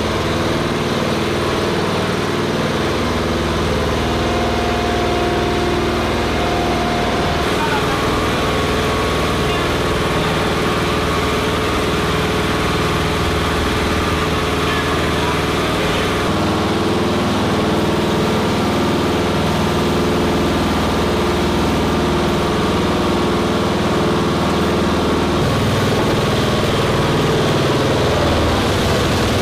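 An engine idling steadily, with voices underneath.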